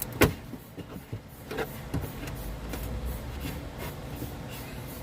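A plastic trim-panel retaining clip being pried out with a clip tool: one sharp click about a quarter second in, then a couple of fainter clicks, over a steady low hum.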